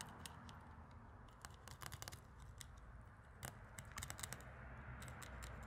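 Knife cutting through a trout's rib bones: faint, irregular small clicks and crackles.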